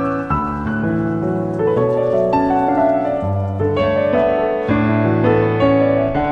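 Background music: gentle piano playing a melody over held bass notes.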